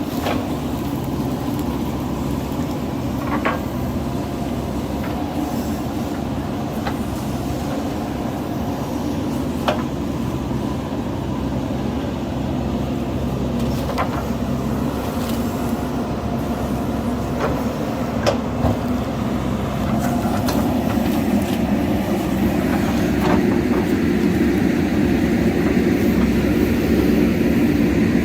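JCB backhoe loader's diesel engine running steadily under work, with a few sharp knocks spread through it, growing a little louder in the last third.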